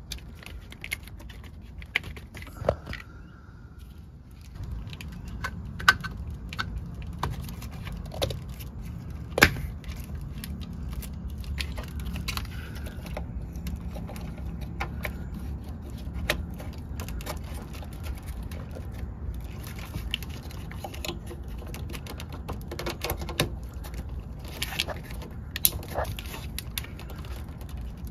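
Plastic wiring-harness connectors and corrugated plastic wire loom being handled and snapped together: a string of irregular sharp clicks and rattles. A low steady rumble comes in at about four seconds.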